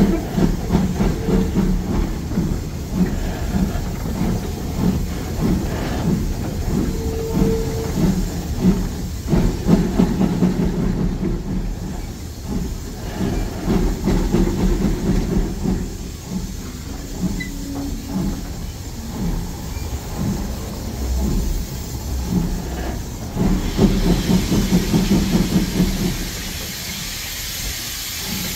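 BR Standard Class 2MT 2-6-0 steam locomotive 78022 working hard up a gradient: chuffing exhaust beats with steam hiss that come in uneven surges as the driving wheels slip. Near the end the beats drop away to a steadier hiss.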